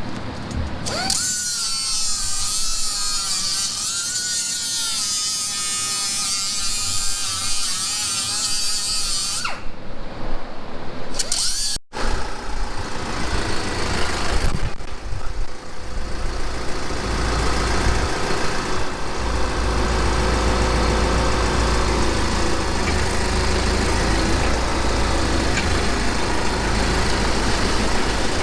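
A high-pitched power tool, most like an angle grinder, whines for about eight seconds, its pitch wavering as it works the metal. After a break, a steady low engine rumble runs on.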